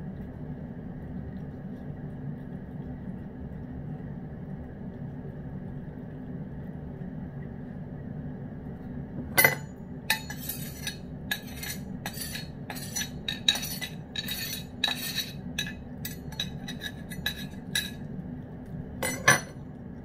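A metal utensil clinks and scrapes against a stoneware bowl in a run of irregular sharp clicks, starting about halfway through, over a steady low hum.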